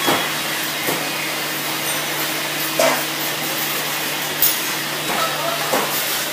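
Street-market ambience: a steady machine hum and hiss, broken by a few short knocks and clatters.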